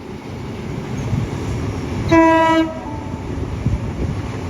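Electric passenger train rumbling along the track, growing louder, and sounding one short horn blast about two seconds in.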